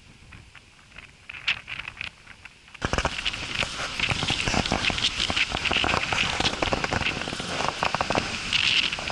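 Dense, loud crackling and rustling of dry grass and brush, mixed with handling noise as the camera is picked up and moved. It starts abruptly about three seconds in, after a few faint ticks.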